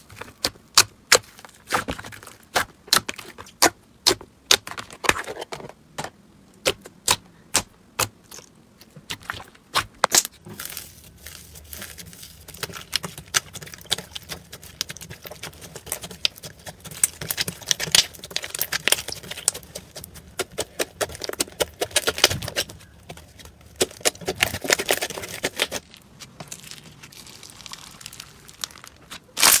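Slime poked, pulled and kneaded by hand: crisp pops and crackles, a couple a second at first, then denser, softer crackling and squishing about a third of the way in.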